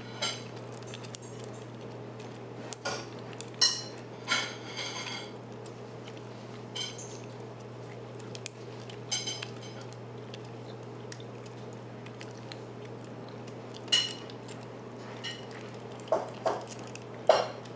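Scattered small metallic clicks and scrapes as a pick turns the discs of an OnGuard disc-detainer lock, with a music wire held in the keyway to align the sidebar gates, over a steady low hum.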